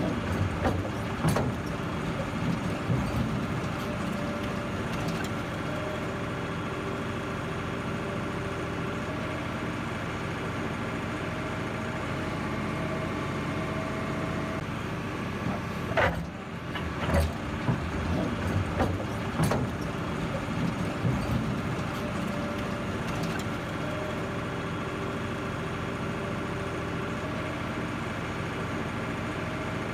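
Excavator's diesel engine running steadily, with scattered metallic knocks and clanks, a cluster of them about halfway through.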